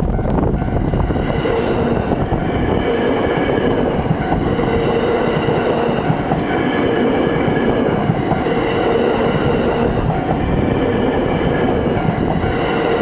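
A 225 series electric multiple unit passing over a level crossing at speed. Its wheels rumble and clatter on the rails, with a steady mix of tones above the rail noise.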